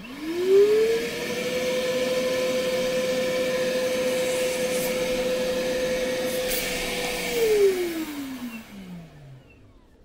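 Milwaukee M12 Fuel brushless wet/dry vacuum switched on at high speed, its motor spinning up to a steady whine while its inlet is sealed for a suction (static pressure) test. About seven seconds in it is switched off and the whine falls as the motor winds down.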